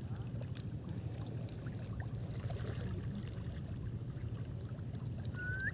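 Shallow seawater sloshing and lapping around someone wading, over a steady low rumble, with faint small splashes. Near the end comes a short rising whistle.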